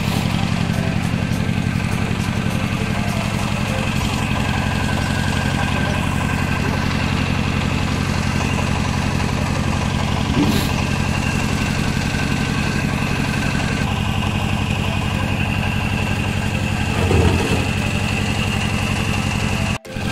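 Small stationary engine of a bore-well drilling rig, running steadily at a constant speed.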